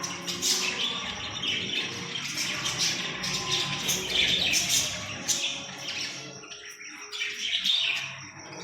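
Green parrot chirping and squawking in a rapid run of short, high calls, thinning out near the end.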